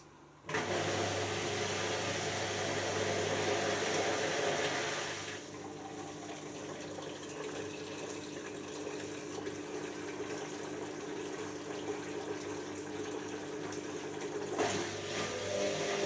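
Hotpoint First Edition washing machine starting up with a sudden loud rush and a steady hum. The rush drops back after about five seconds while the hum carries on, and there is a click near the end as the sound changes.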